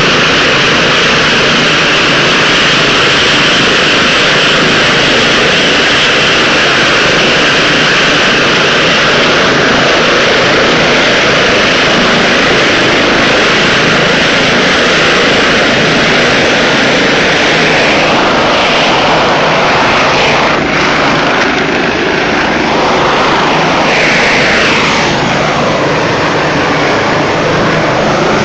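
Rescue helicopter hovering low overhead: loud, steady turbine and rotor noise with a high whine running through it. In the last ten seconds or so the pitch of the noise sways up and down.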